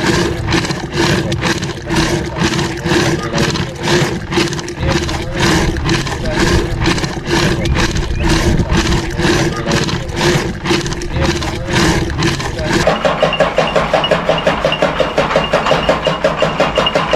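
Rhythmic swishing strokes, about three a second, of a wooden churn stick worked back and forth by a rope in a clay pot of milk. About 13 s in this gives way to an electric chaff cutter running, its flywheel and blades chopping green fodder with a fast pulsing beat and a faint high whine.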